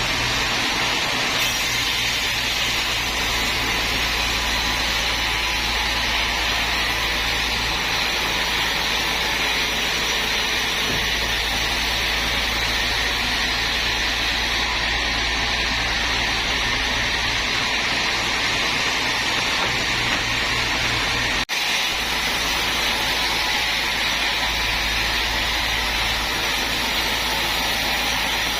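Sawmill machinery running steadily: an even hissing noise over a low motor hum, which drops out for an instant about three quarters of the way through.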